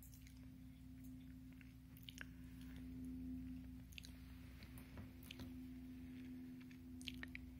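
Near silence: room tone with a faint steady hum and a few small, soft ticks.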